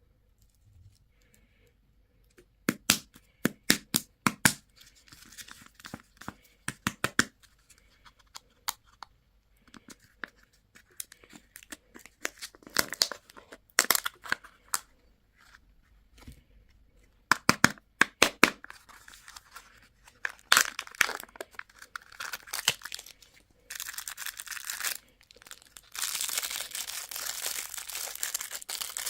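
Packaging being opened by hand: a series of sharp plastic clicks and cracks, then continuous crinkling and tearing of wrapper toward the end.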